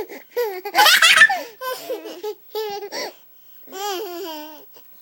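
A baby laughing hard in about five quick bursts, the loudest about a second in, a reaction to a sneeze.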